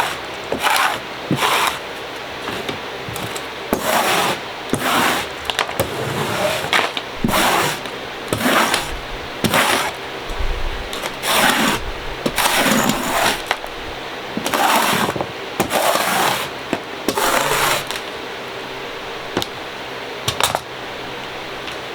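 Dried clay being broken down with a tool: a run of short crunching, scraping strokes, roughly one or two a second, over a steady hiss. The strokes stop near the end, with one last one after a pause.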